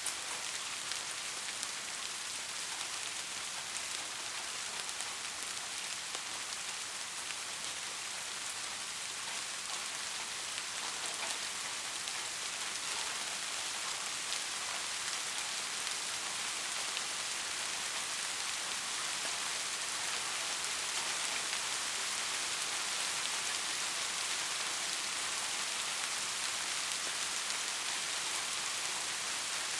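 Steady rain falling: a dense, even hiss of many drops with fine pattering, growing slightly heavier about halfway through.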